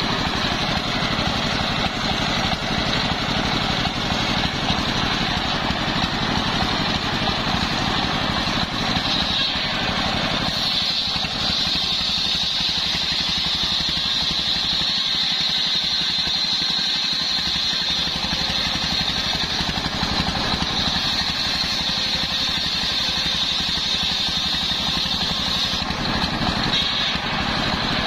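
Homemade circular sawmill: a stationary diesel engine runs steadily and drives a large belt-driven circular blade through a sengon (albizia) log. About a third of the way in the cut pauses and the blade spins free with a thinner, higher whine over the engine. Cutting resumes near the end.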